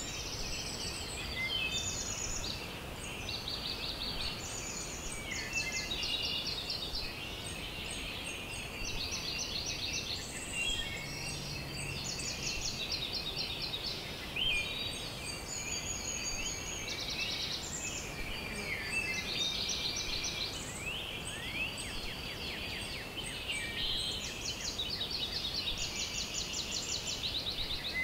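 Outdoor wildlife chorus: many high-pitched rapid trills and chirps overlap and repeat every second or so without a break.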